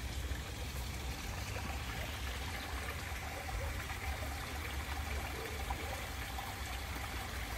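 Small garden waterfall splashing and trickling steadily into a pond.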